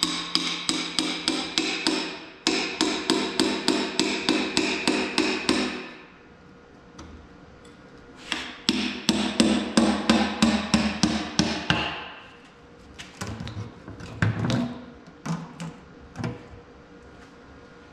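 A hand tool tapping rapidly on the steel oil pan of an Oliver 1600 tractor engine, about five strikes a second in two long runs, the pan ringing with each strike. A few scattered single knocks follow near the end.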